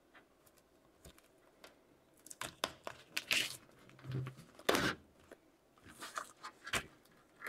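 Thin protective plastic film being peeled off the face of a metal poster: quiet at first, then crackling and crinkling in short bursts from about two seconds in, the loudest near the middle.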